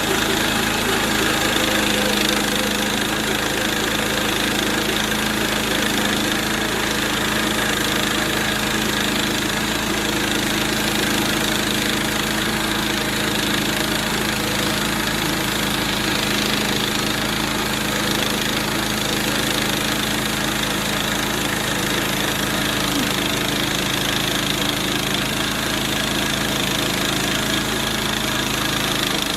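Small gasoline engine of a portable bandsaw sawmill running steadily, its band blade cutting through a hard, dry mesquite log.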